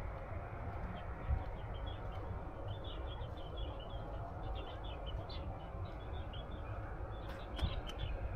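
Birds chirping in quick, high, repeated calls over a low steady rumble.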